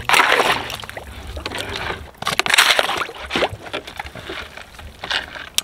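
Water sloshing and splashing against a sailboat hull as a long-handled plastic blade scrapes marine growth off the waterline. There are two louder splashing bursts, one at the start and one about two and a half seconds in.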